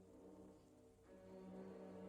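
Faint ambient music of slow, sustained held chords with a brass-like tone, a new chord swelling in about a second in.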